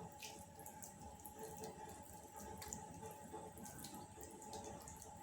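Faint wet scraping and soft clicks of a spoon spreading and levelling pizza sauce over pizza dough in a steel plate, over a steady low background hum.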